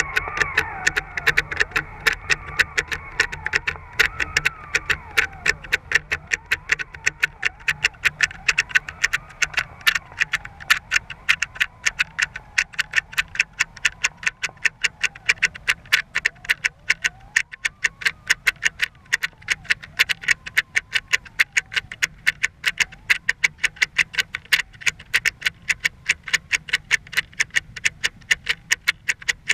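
Metal fishing swivel on a halibut rig clicking rapidly and steadily, several clicks a second, heard underwater through a GoPro's waterproof housing as the gear sinks; the swivel is noisy and turns poorly. A faint wavering whine sounds under the clicks in the first half and fades out.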